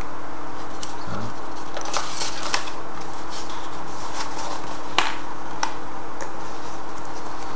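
Light rustles and taps of a cardboard product box and paper inserts being handled, with a few sharper clicks, over a steady low hum and hiss.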